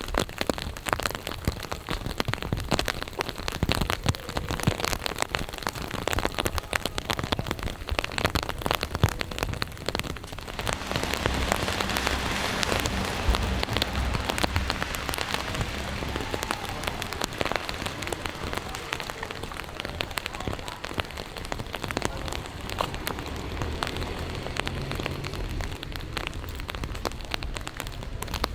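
Steady rain, with many separate drops striking close by. About ten seconds in, a denser hiss and a low rumble join it.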